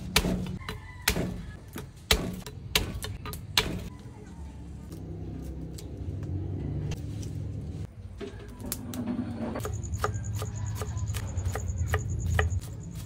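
Kitchen clatter: a series of sharp knocks and clinks, as of utensils, dishes and pans being handled, over a low steady hum. From about ten seconds in, a rapid, high pulsing chirr joins.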